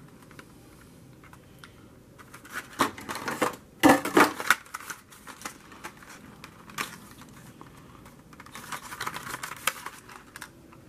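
Handling noises from a large fishing lure being turned over in the hands: scattered sharp clicks and short rustles, loudest about four seconds in, with a longer run of small rustles near the end.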